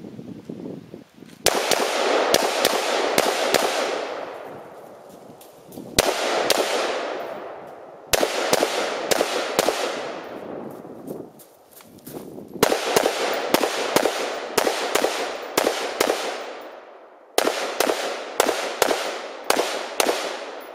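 Gunshots fired on a range in four or five strings of rapid single shots, a fraction of a second apart. Each string leaves a long echo rolling away over a couple of seconds.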